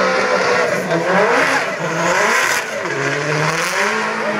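Race car engine revving hard on the track, its pitch rising and falling as the driver works the throttle, dropping low about three seconds in and then climbing again.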